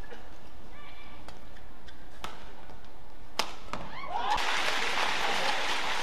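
Badminton racket strings striking a shuttlecock in a rally, a few sharp cracks with the loudest about three and a half seconds in. The rally ends, and from about four seconds in an arena crowd breaks into cheering and applause.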